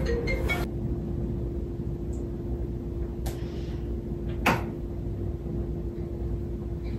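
Quiet room tone: a steady low hum, with two short knocks about three and four and a half seconds in, the second the louder.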